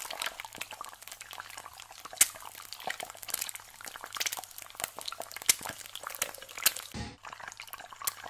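Eggs frying in hot oil in a pan, sizzling with irregular sharp pops and crackles, and a short low thump about seven seconds in.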